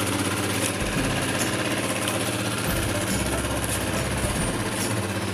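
Small single engine of an outrigger fishing boat running steadily under way, with a low even drone, over a constant rush of wind and water.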